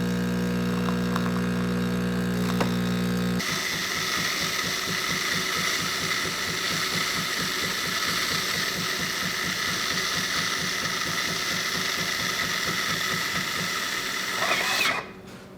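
Jura E8 super-automatic espresso machine making a flat white: a steady motor hum for about three and a half seconds, then the machine's pump running with a fast, even pulsing and a thin high whine, which stops near the end.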